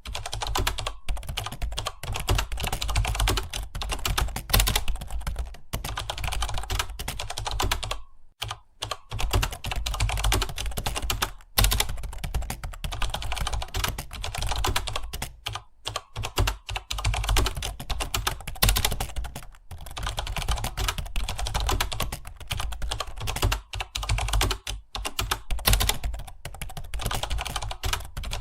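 Fast continuous typing on a computer keyboard, a rapid clatter of keystrokes with short pauses about eight seconds and eleven and a half seconds in.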